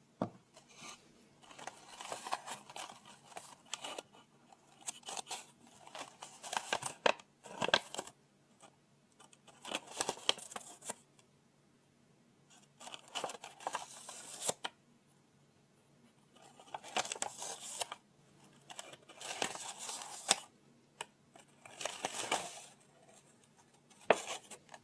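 Close-up rustling of paper and book handling, in bursts of a second or two with short pauses between.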